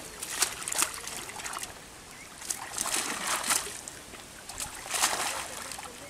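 Water splashing in irregular bursts as a cast net holding fish is lifted and shaken in shallow pond water.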